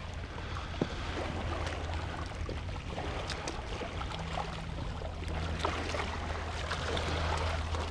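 Gentle water lapping at the shoreline rocks, with scattered small clicks and splashes, over a steady low hum.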